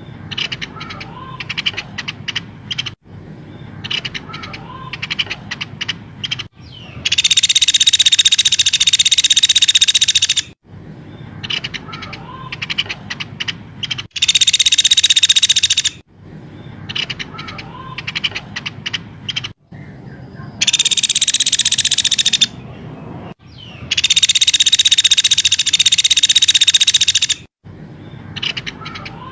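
Recorded bird calls played in a loop as training material for a songbird: a dense, high, buzzy chatter lasting two to four seconds, heard four times, alternating with sparse quick ticking notes. The recording breaks off abruptly between segments.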